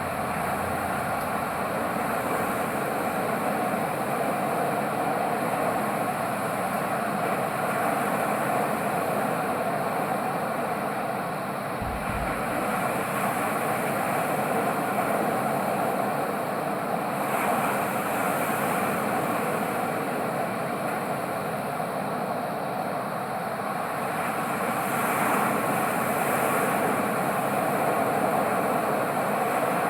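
Ocean surf: a steady rush of waves, swelling gently now and then as waves break.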